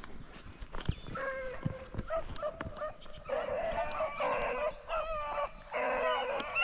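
A pack of young rabbit hounds baying on a rabbit's track: repeated high barks and bays, starting about a second in and thickening into a dense, overlapping chorus in the second half.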